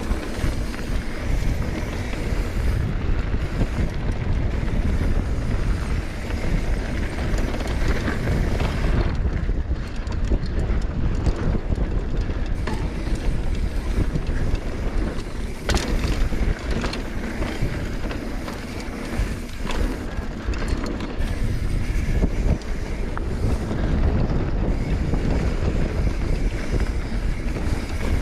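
Wind rushing over the microphone and mountain bike tyres rolling fast over dirt singletrack, a steady low rumble with a few sharp knocks from the bike over bumps.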